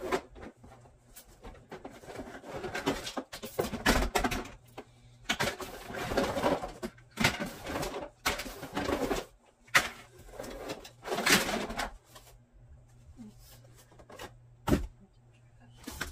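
Plastic toys and a cardboard toy box being handled and dropped into a plastic storage bin: irregular rustling and clattering, with sharp knocks about ten seconds in and again near fifteen seconds.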